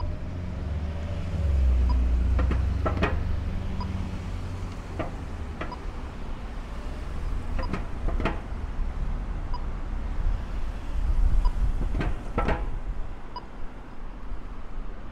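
Cars passing through an intersection, a low engine and tyre rumble that swells twice as vehicles go by, with a few sharp clicks. A pedestrian crossing signal beeps faintly about every two seconds.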